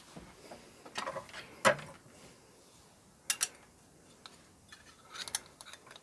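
Light clicks and knocks of small plastic and metal cassette-deck parts being handled as the drive motor is lifted out and moved around. The sharpest knock comes near two seconds in, a quick pair a little past three seconds, and a small run of clicks late on.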